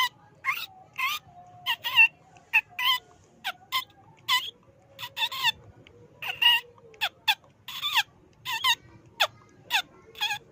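Rats squeaking: a quick run of short, high squeaks, each falling in pitch, about two a second and irregularly spaced, some in close pairs. This is a rat call played as a lure to draw rats out of their nests.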